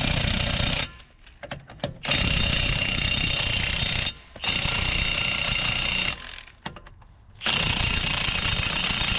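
Milwaukee 2767-20 half-inch cordless impact wrench hammering on a truck wheel's lug nuts. It runs in four bursts of one to two seconds each, with short pauses and small clicks of the socket between them.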